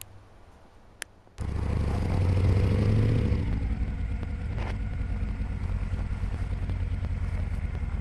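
A cruiser motorcycle's engine running, cutting in suddenly about a second and a half in and staying loud and steady.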